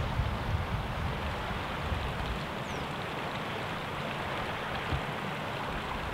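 Wind buffeting the microphone in uneven low rumbles over a steady hiss.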